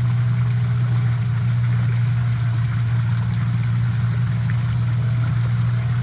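A steady low hum, unchanging throughout, with a faint hiss over it.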